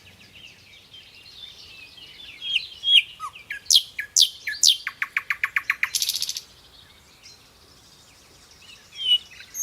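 Birds chirping: quick high chirps and sharp falling calls, then a fast rattling run of notes and a short buzzy burst about six seconds in, a quieter spell, and more chirps near the end.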